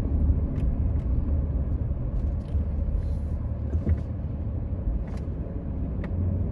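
Steady low rumble of a car driving along a road, heard from inside the cabin, with a few faint ticks.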